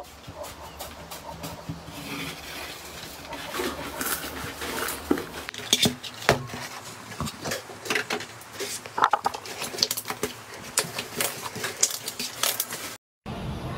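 Slime being squeezed and pressed by hand, giving a dense run of irregular sticky clicks and pops that grow busier after about two seconds. The sound breaks off briefly near the end.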